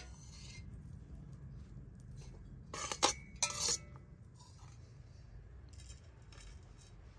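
A metal spoon clinking against an enamelled bowl while filling is scooped out, in two short clusters about three seconds in, the second ringing briefly.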